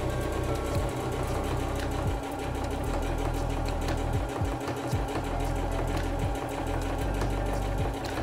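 Sewing machine running and stitching, in steady spells broken by several brief pauses.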